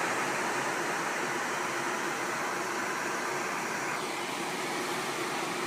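A 30-pint dehumidifier running just after being switched on: the steady rush of its fan drawing air through, with a faint steady hum underneath. The higher part of the hiss eases slightly about four seconds in.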